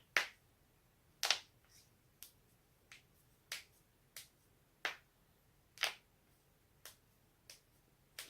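Joints being cracked: a series of about eleven sharp, short pops, roughly one a second and unevenly spaced. The loudest come near the start and about six seconds in.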